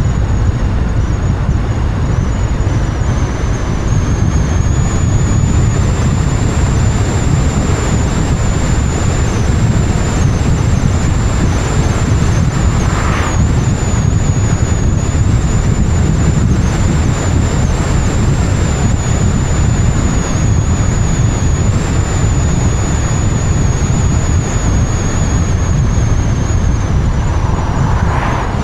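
Car driving at speed, heard through an outside-mounted camera: a steady low rumble of wind buffeting the microphone and road noise, with a thin high whistle held throughout. Two brief whooshes stand out, one around the middle and one near the end.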